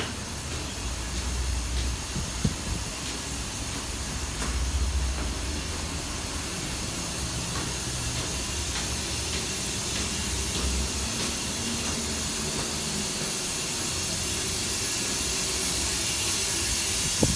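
Loud, continuous hiss of running water that has been going non-stop for about 24 hours, steady and growing slowly louder toward the end.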